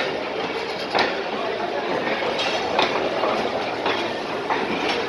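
Passenger train coaches rolling past a platform, a steady rumble broken by sharp wheel clacks over rail joints about once a second.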